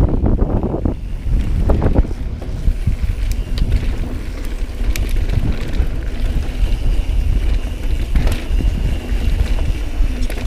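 Wind buffeting a GoPro during a mountain-bike descent, over the rumble of tyres on a dirt trail, with a few sharp knocks and rattles from the bike.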